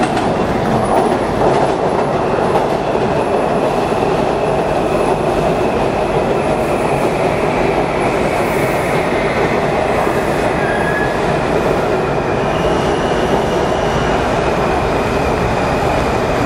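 WMATA Metro train running on the rails: a steady, loud rumble of wheels and running gear, with a faint high whine that steps up in pitch about twelve seconds in.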